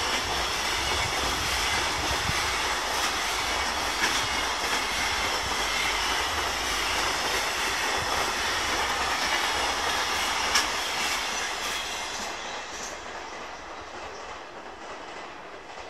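Container wagons of a JR Freight train rolling past, with a steady rumble, wheels clacking over rail joints and a faint high squeal. The last wagon goes by about twelve seconds in and the sound fades away.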